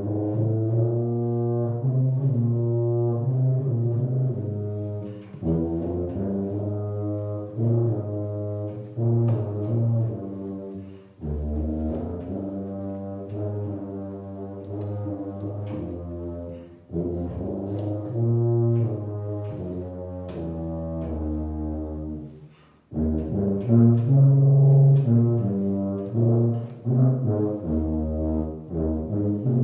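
Solo tuba playing a melody of low, sustained notes in phrases, with a short break between phrases about every six seconds.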